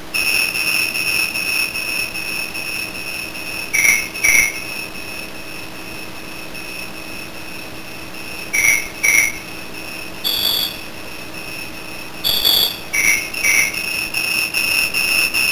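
A steady high-pitched tone held for most of the time, broken several times by short notes at lower and higher pitches, like a simple tune on one electronic note.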